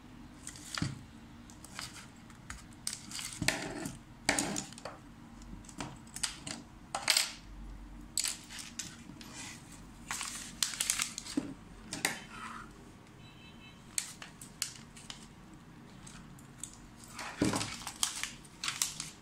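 Irregular clicks, clinks and knocks of small metal and plastic parts as a laser printer's fuser unit is taken apart by hand: needle-nose pliers working its springs and the fuser assembly being turned over and set down on the table.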